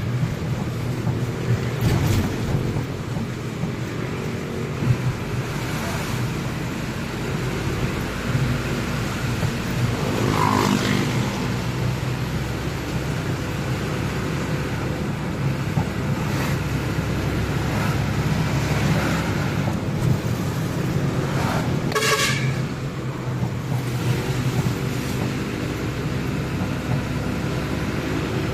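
Truck engine and road noise, heard from inside the cab while driving. A vehicle horn gives a short toot about 22 seconds in.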